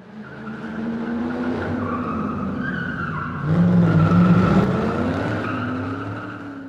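A car sound effect with several steady whining tones. It fades in, grows louder about halfway through, then fades away at the end.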